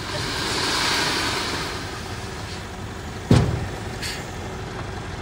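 Truck engine running, with a hiss that swells and fades over the first two seconds. A single sharp bang a little past three seconds in is the loudest sound, followed by a faint click.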